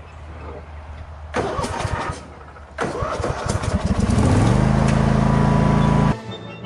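A small engine cranks and starts. Its speed climbs for about a second and a half, then settles into a steady, loud run, and the sound cuts off suddenly near the end.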